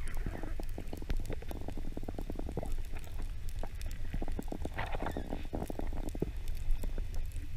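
Underwater sound picked up by a camera in its housing: a steady low rumble of water with many irregular small clicks and knocks, and a brief louder muffled noise about five seconds in.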